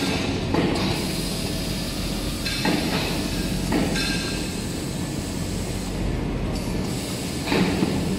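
Toilet-paper converting machinery running: a steady mechanical rumble with a brief clattering knock now and then.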